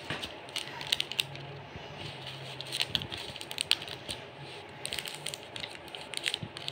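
Crinkling and tearing of a KitKat wrapper as a rose-ringed parakeet bites at it and a hand handles the pack: irregular crisp clicks and crackles.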